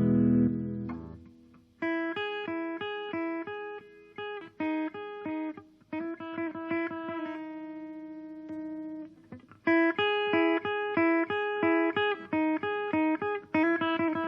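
Guitar played through a transistor circuit fitted with a BC337 transistor: a chord rings out and fades, then a riff of short picked notes, broken by a brief pause about nine and a half seconds in.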